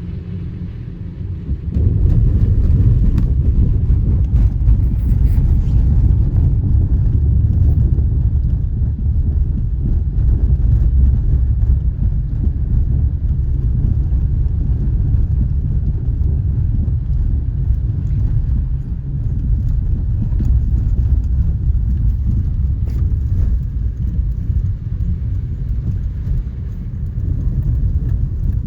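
Steady low rumble of a car driving, road and tyre noise heard inside the cabin, growing louder about two seconds in.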